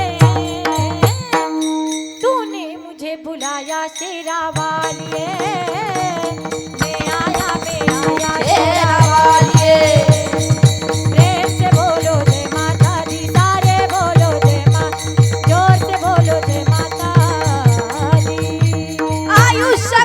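Kirtan devotional music: a melody over a steady drone, with a fast, even drum beat and bright percussion strokes. The beat drops out for about three seconds shortly after the start and comes back in.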